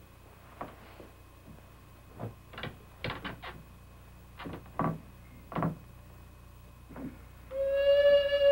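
Irregular knocks and bumps of someone moving about a room, some of them in a quick cluster about three seconds in. Near the end a single held flute note enters.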